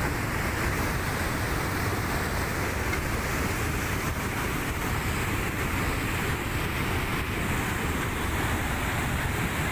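Muddy floodwater rushing past in a steady, unbroken torrent.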